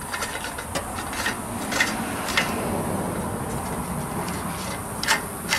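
A small engine's rusty sheet-metal blower housing, with its recoil starter, is worked loose and lifted off by hand. Scattered clicks and knocks of metal, with a stretch of scraping and rubbing through the middle.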